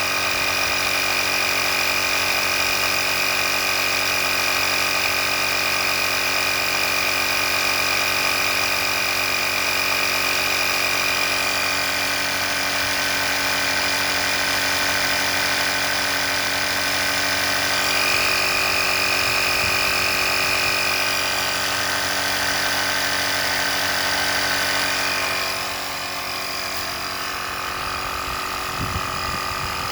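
Small electric air compressor (pump) of an EverStart portable power unit running steadily with a motor hum. Its note shifts a couple of times, and the sound drops a little in level about 25 seconds in.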